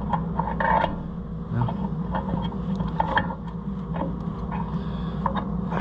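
Scattered metallic clicks and clinks of a combine header's roller-type gathering chain and its sprockets being worked into place by hand, over a steady low hum.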